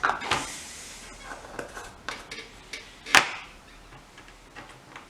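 Small tools and parts being handled on a workbench: light clicks and taps, with one sharper knock about three seconds in.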